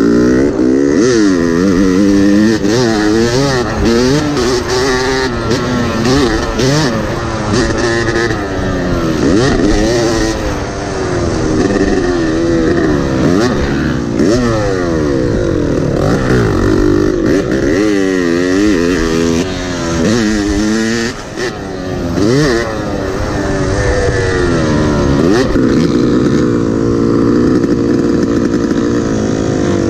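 Yamaha YZ250 two-stroke dirt bike engine under hard riding, its pitch climbing and dropping over and over as the throttle is opened and rolled off through the gears. There is one brief lull about two-thirds of the way through.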